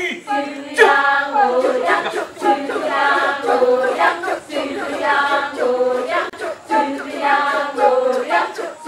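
A chorus of Balinese women chanting a cappella, many voices together in held, pitched phrases that break off every two seconds or so.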